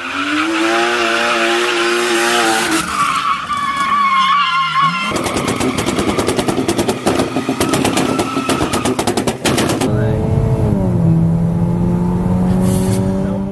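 Car engines revving hard during drifting, with a high tyre squeal for a couple of seconds, then a fast run of sharp cracks lasting about five seconds, then an engine note that rises and holds. The sound changes abruptly several times, as between cut clips.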